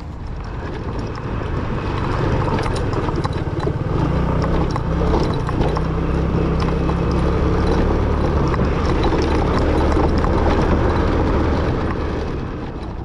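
A vehicle running, with scattered clicks and knocks over a steady low rumble; it grows louder over the first couple of seconds and drops off near the end.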